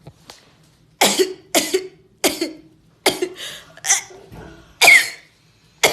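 A person sneezing over and over in an uncontrollable fit: a quick run of about seven short, loud sneezes, starting about a second in, the loudest near the end.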